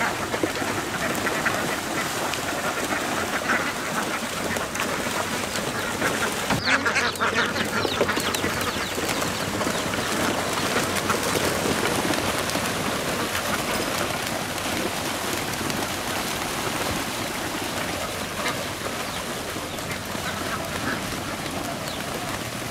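A large flock of laying ducks quacking continuously as they leap from a boat into a canal, with steady splashing and wing-flapping in the water. The din is loudest about seven seconds in.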